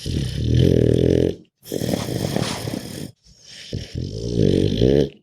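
Pug dog grunting and breathing raspily in three rough bouts of about a second and a half each, with short breaks between; the last bout cuts off abruptly.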